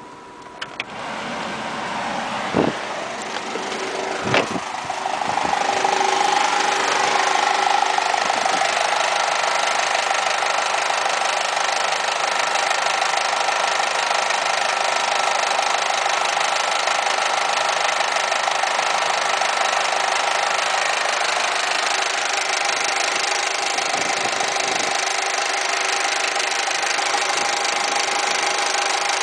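Air conditioning being switched on: two sharp clicks a couple of seconds apart, then a steady, loud running noise with a humming tone builds up and holds. This is the weird noise that comes with the AC on.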